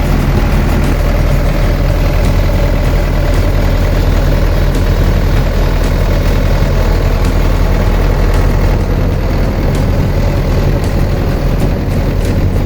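SANY SY155C crawler excavator's diesel engine running steadily, at or near idle.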